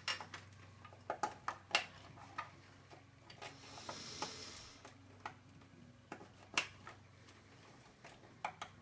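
Scattered small clicks and taps of hands working power-supply cables against a metal PC case. A short rustling scrape comes about four seconds in, over a faint steady low hum.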